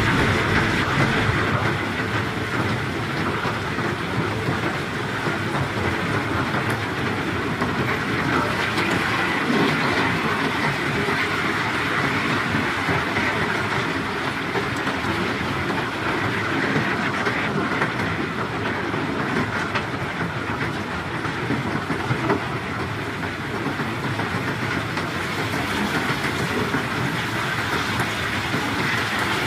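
Steady mechanical rumble with rattling, from heavy machinery running.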